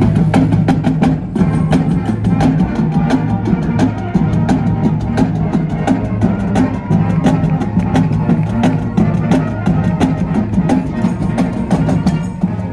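A live street band's drums, with snare and bass drums, playing a fast, steady beat over held low brass notes.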